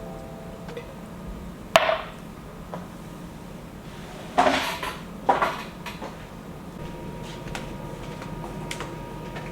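Hard objects knocking and clinking as they are handled and set down during bathroom cleaning: three louder clatters about two, four and a half and five and a half seconds in, with a brief ring after them, and a few fainter clicks.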